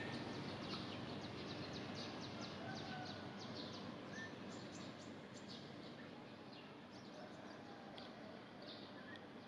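Faint outdoor ambience: birds chirping, short high notes repeating about twice a second over a steady hiss, thinning out after about five seconds.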